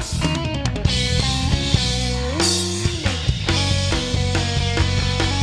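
Rock band playing an instrumental passage with electric guitar and drum kit, no vocals; one note slides up and back down about halfway through.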